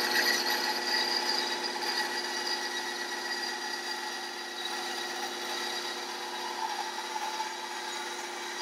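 Ryobi BS904G 9-inch 2.5-amp band saw running, its blade cutting through a 2x4 as the wood is fed through, a steady motor hum under a rasping cut. The cutting noise eases off gradually through the cut.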